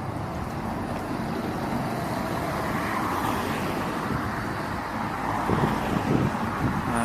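A bus driving past on the road, its engine and tyre noise swelling to a peak about three seconds in and then easing, over general road traffic.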